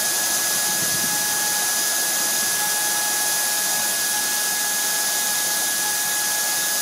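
NeoP4 desktop CNC mill's spindle running at high speed, a fine pointed bit cutting into a small aluminium part: a steady high-pitched whine over an even hiss.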